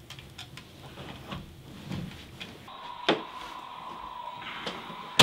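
Faint rustling and small handling clicks, then about two and a half seconds in a toy walkie-talkie opens with a steady hiss of static and a steady tone. A click follows, and near the end a sharp, loud click.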